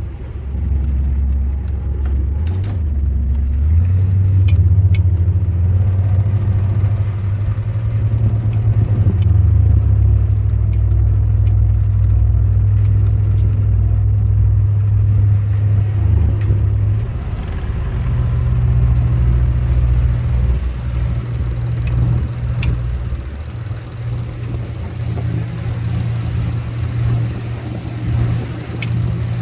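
Engine running with a deep steady drone whose pitch shifts up and down several times, with a few faint sharp clicks.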